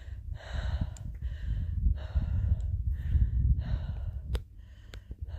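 A hiker's heavy breathing from a steep climb: a quick run of hard breaths in and out, about one every half second to second, over a low rumble on the microphone.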